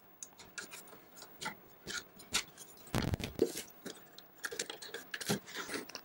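Hard drive trays being unlatched and slid out of a QNAP TS-453Be NAS's drive bays: a string of small clicks and scraping slides, with a louder knock about halfway through.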